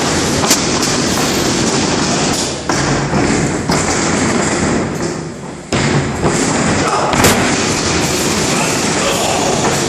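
Thuds and bumps of wrestlers running and landing on a wrestling ring's canvas, with a few sharp impacts standing out. Under them runs a loud, steady rushing noise that fades a little past the middle and cuts back in suddenly.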